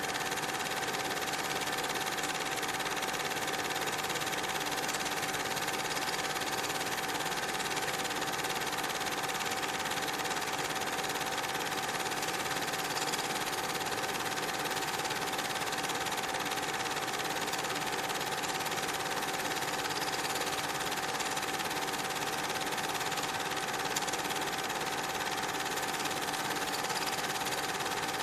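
A steady mechanical whirr over even hiss, with one constant high tone running through it and no change in level.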